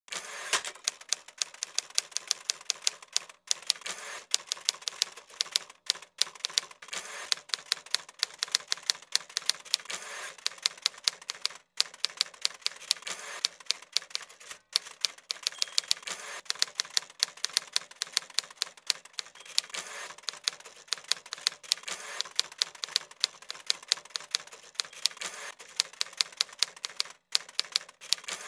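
Typewriter keys clacking in a fast, irregular stream of keystrokes, several a second, with a few brief pauses. It is the typing sound that goes with text being typed onto the screen.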